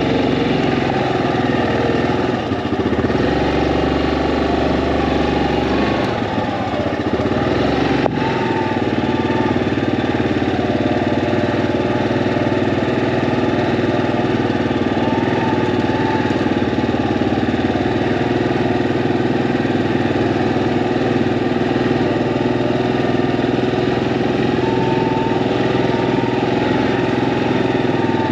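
Yamaha Grizzly ATV engine running steadily, its pitch rising and falling slightly now and then. A single sharp click about eight seconds in.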